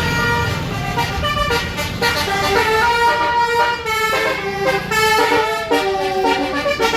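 Tour bus's multi-note 'telolet basuri' air horn playing a melody, stepping quickly from note to note, over the low rumble of the bus engine.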